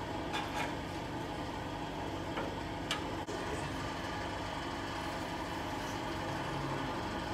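A steady background hum, with a few light clicks and one sharper click about three seconds in as hands work at parts in a riding mower's engine compartment.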